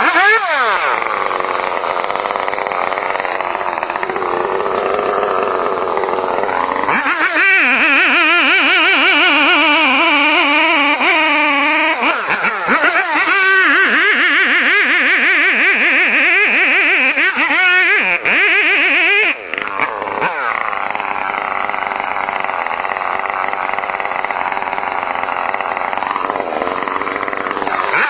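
Chainsaw engine running hard and cutting, its pitch wavering up and down as the load on the chain changes.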